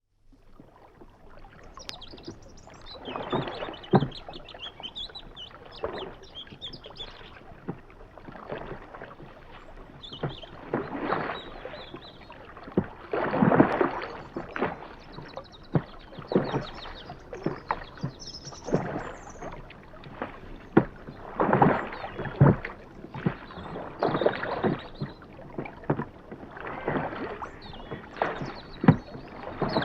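Oars of a rowing boat dipping and pulling through canal water, with a splashing swell about every two and a half seconds and sharp knocks between the strokes.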